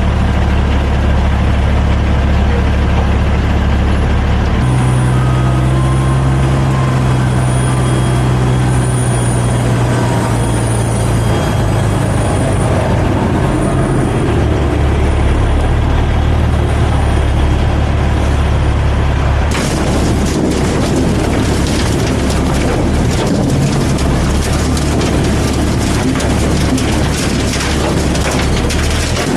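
Heavy diesel engines of an asphalt milling operation running steadily, the engine note rising about five seconds in, with a faint high beeping about once a second. About twenty seconds in, a loud rushing clatter starts and continues: asphalt millings pouring off the conveyor into the dump truck's bed.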